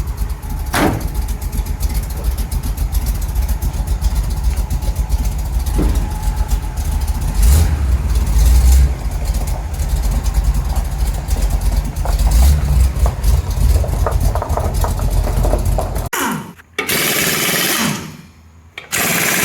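1975 Chevrolet C10's engine running after a jump start, a steady low rumble that cuts off abruptly near the end.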